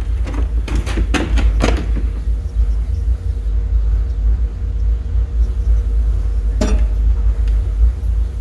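Steady low rumble of shop room noise with a faint constant hum, and a few light knocks in the first two seconds and one more near the end.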